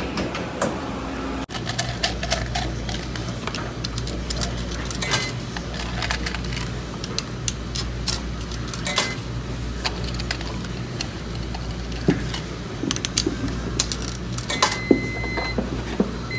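Quarters clicking and dropping into the coin slot of a Speed Queen coin-operated washer, with button presses, over the steady hum of running laundromat machines. A short electronic beep sounds near the end, as the machine shows it has been paid and is ready to start.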